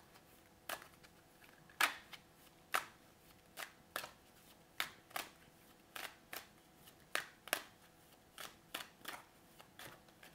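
A deck of tarot cards shuffled by hand, overhand, with packets of cards pulled through the other hand. The result is a string of sharp card slaps at an irregular pace, about one or two a second.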